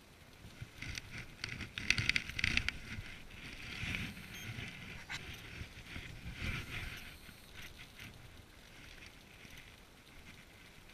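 Footsteps crunching and shifting on loose riprap stones, with rod-handling rustle, in irregular clusters; one sharp click about five seconds in.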